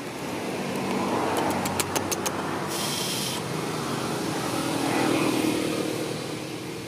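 A motor vehicle passing by, its running sound swelling over a few seconds and then fading. A few sharp clicks come about a second and a half in, followed by a brief hiss.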